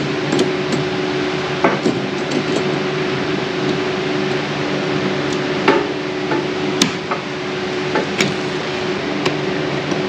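Scattered sharp clicks and knocks, several in all, as a new 50 amp circuit breaker and its wires are handled and pressed into place in a metal breaker panel, over a steady machinery hum.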